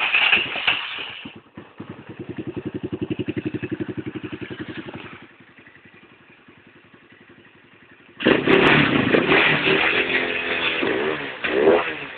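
250cc motorcycle engine running evenly with no misfire, now that a loose clip has been crimped down. A quick rev, then a steady pulsing idle. It goes quieter for about three seconds, then revs loud from about eight seconds in.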